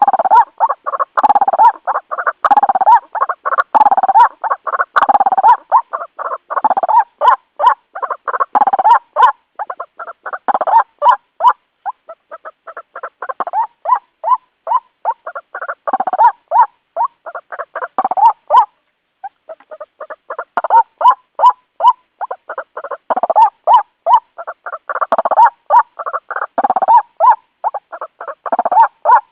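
White-breasted waterhen (ruak-ruak) calling: a long, loud run of harsh repeated notes, several a second, with a short break about two-thirds of the way through.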